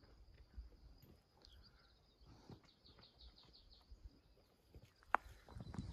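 Quiet outdoor ambience: a faint steady high whine, with a short run of rapid high chirps about a second and a half in. Soft low thuds run underneath, and one sharp click comes near the end.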